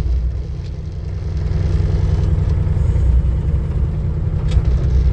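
Mini excavator's diesel engine running steadily under digging load, heard from the operator's seat, growing a little louder about a second in.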